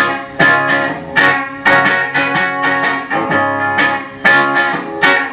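Hollow-body electric guitar strummed through an amplifier, with no singing: chords struck a little under twice a second, each ringing on until the next.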